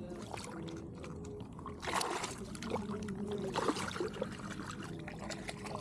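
Water splashing and sloshing in the shallows as a peacock bass is let go from a lip grip and a hand splashes in the water. The loudest splashes come about two seconds in and again a second and a half later.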